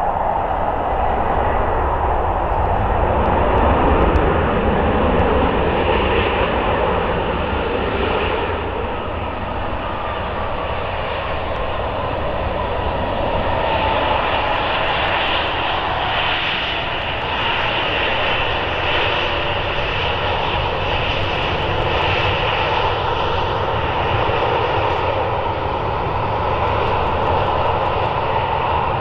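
Boeing 737-700 BBJ's CFM56-7 turbofan engines running as the jet rolls out after landing. The sound is loudest about four seconds in and eases off by about ten seconds, with a falling whine shortly after.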